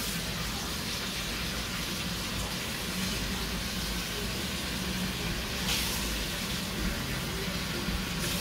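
Spice paste sizzling in hot oil in a stainless steel pot, a steady hiss with one brief louder crackle about two-thirds of the way through.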